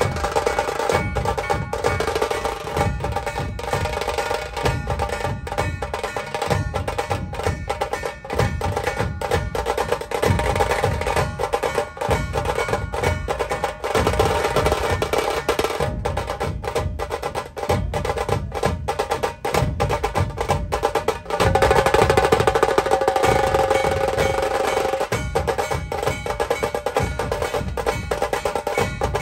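Music led by fast, dense drumming, a steady stream of sharp drum strokes, with a held melody line over it that swells louder for a few seconds about two-thirds of the way through.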